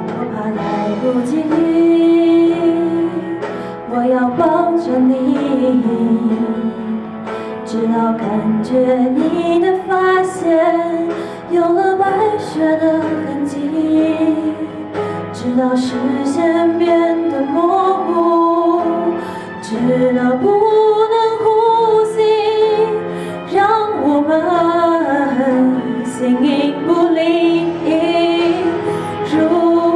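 A woman singing a slow Mandarin pop ballad into a microphone over a karaoke backing track.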